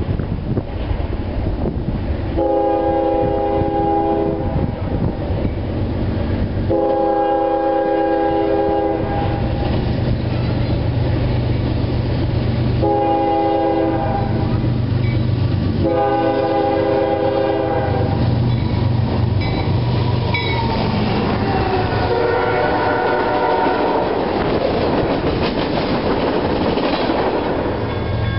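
Diesel locomotive's multi-chime air horn sounding four chord blasts in the grade-crossing pattern, long, long, short, long, as a freight train approaches. The locomotive's engine rumble and the wheels on the rails grow louder through the second half.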